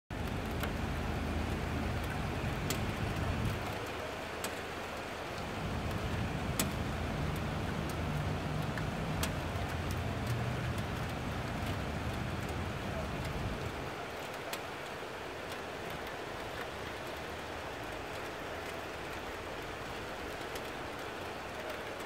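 Steady hiss of rain with scattered sharp drip clicks, over a low rumble that dies away about fourteen seconds in.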